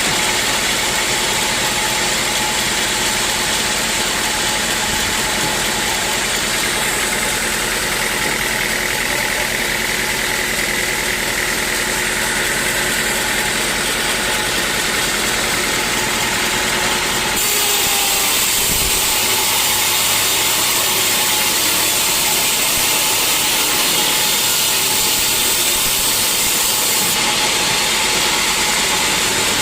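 Sawmill machinery running steadily, a constant mechanical drone with a steady hum. The sound changes abruptly a little past halfway.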